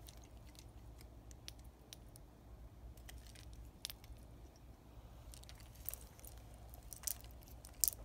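Stainless steel bracelet links and folding clasp of a Roberto Cavalli chronograph clicking and clinking faintly as the watch is handled and turned over, in scattered small clicks with a few sharper ones toward the end.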